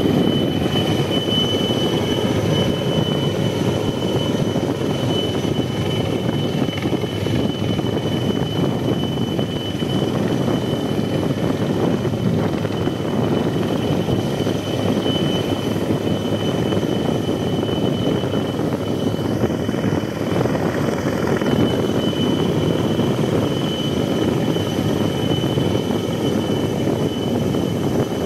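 Helicopter hovering: steady rotor and engine noise, with a thin, steady high whine over it.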